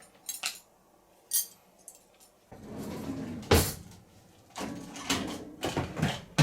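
Cutlery clinking lightly a few times, then dishes and the racks of a compact dishwasher clattering as they are handled, with one loud knock about three and a half seconds in.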